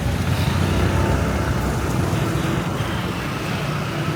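Steady street traffic noise, with vehicle engines running continuously.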